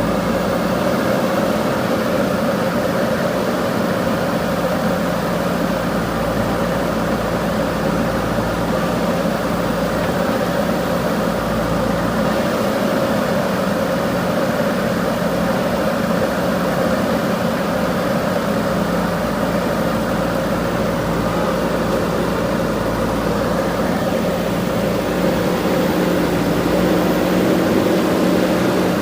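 JCB 3DX backhoe loader's diesel engine running steadily at an even pitch, growing a little louder near the end.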